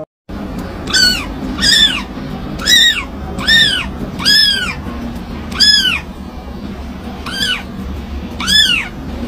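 A tiny kitten mewing over and over: about eight short, high-pitched mews, each rising then falling in pitch, over a steady low background hum.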